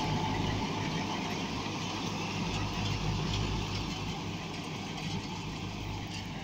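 Mahindra 595 DI Turbo tractor's turbocharged diesel engine running steadily under load, driving a KSA straw reaper. The reaper's cutting and threshing drum and blower add a steady rushing whirr as chopped straw is blown into the trailer.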